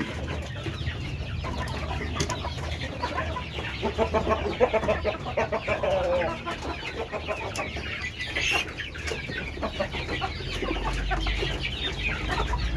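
Several ayam kampung (Indonesian native village chickens) clucking continuously, many short calls overlapping, with a steady low hum underneath that grows louder near the end.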